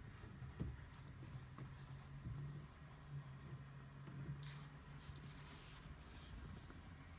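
Faint scratchy brushing of a paintbrush stroking paint onto a canvas, in a few short rustles, over a low steady hum.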